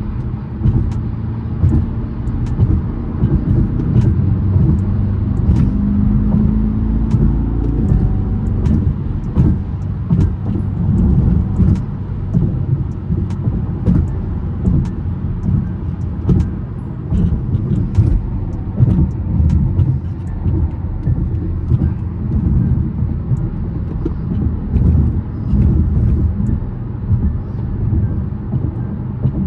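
BMW M6 driving, its engine and road noise heard from the driver's seat as a steady low rumble with many small clicks, and a short rise in engine pitch about six seconds in.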